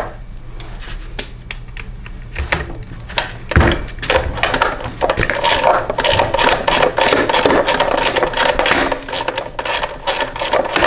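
Tool working a bolt loose on a push mower: a few scattered metallic clicks, then from about four seconds in a fast, continuous run of clicking and rattling with a steady whine underneath that lasts almost to the end.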